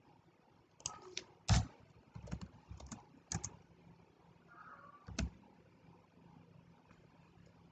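Computer keyboard being typed on: irregular keystrokes in short runs, the loudest about a second and a half in and the last about five seconds in.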